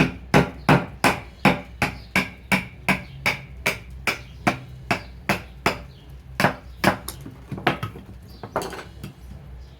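LT Wright Bushbaby fixed-blade knife being batoned to split a piece of hardwood: a steady run of sharp knocks, about two and a half a second, that stops near the end.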